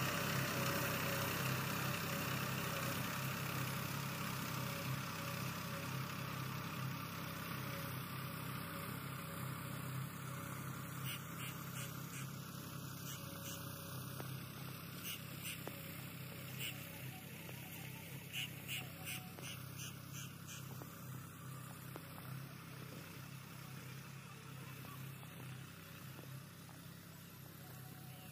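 Tractor diesel engine running steadily as it pulls a seed drill, gradually fading as the tractor moves away. A few faint high clicks come in near the middle.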